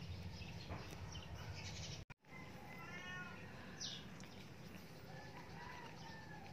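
Newborn Shih Tzu puppies crying: a string of short, high, wavering cries, beginning just after a brief gap in the sound about two seconds in.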